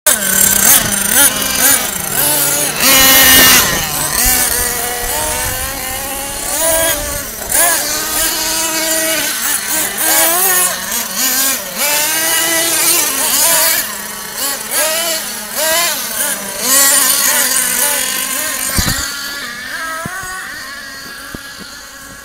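Thunder Tiger RC short-course truck's motor revving up and down as it runs around a dirt track, fading near the end as it moves away.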